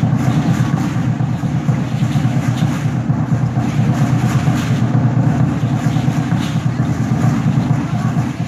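Aztec dance drumming accompanying the dancers: a continuous beat so loud on the phone's microphone that it blurs into a dense, distorted low rumble.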